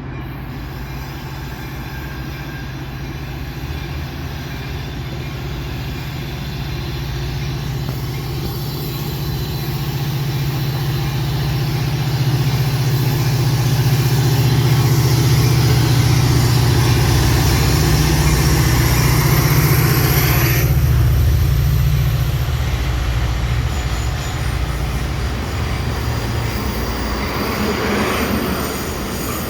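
Train passing on the line, with a steady low diesel-engine drone and rail noise that build to their loudest about halfway through and then ease off.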